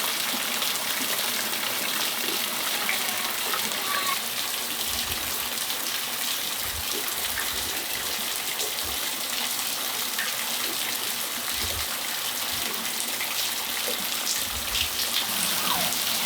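Steady rain falling on a patio: an even, dense hiss of drops, with a few faint short high calls over it.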